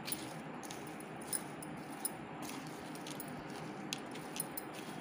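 A metal spoon mixing mashed potato, broken instant noodles and chopped onion in a bowl: soft scraping and stirring with a few sharp clinks of the spoon against the bowl.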